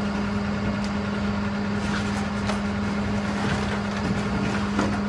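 Skip-loader lorry's engine running with a steady hum, with a few light metal clinks as the lifting chains are handled.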